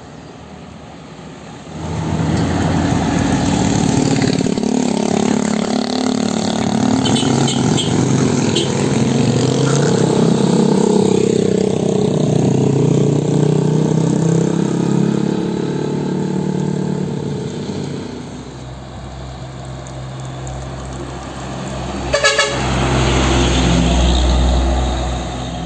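Trucks passing close on a road with their engines running and horns honking; a quick burst of short toots comes about 22 seconds in, and a heavy truck's engine rumbles by near the end.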